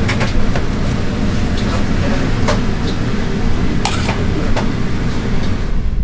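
Irregular clinks and knocks of cooking utensils over a steady low hum.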